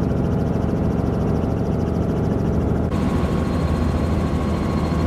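Helicopter running steadily, a constant drone from its engine and rotor. About three seconds in, the sound changes abruptly and a thin, steady high whine joins it.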